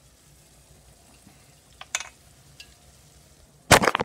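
Faint, steady kitchen sizzling from the stove, with a couple of small clicks about two seconds in and a loud, brief thump near the end.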